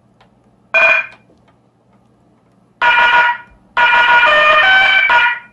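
Train-horn sound effect played loud through a small loudspeaker by an Arduino-triggered sound-board car horn, sounding in short blasts: one about a second in, another near 3 s, then a longer blast of about a second and a half whose notes step up and down.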